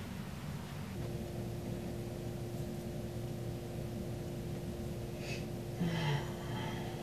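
Steady room hum with a constant low tone. About six seconds in comes a man's short, low exhale, falling in pitch, as he stretches his arms overhead.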